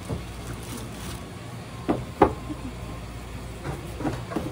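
Steady low machine hum of a shop's back kitchen, with two sharp knocks close together about two seconds in and a few fainter knocks near the end, as things are handled.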